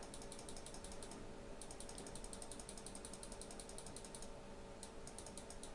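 A computer mouse button clicked rapidly over and over, a fast run of faint clicks with a short pause near the end, stepping a tempo value up one beat per minute at a time.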